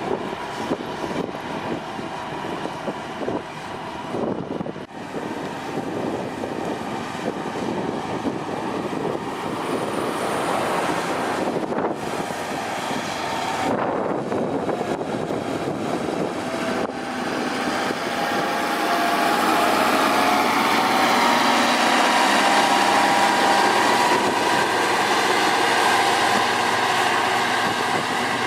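Heavy road-construction machine's diesel engine running steadily, growing louder about two-thirds of the way in.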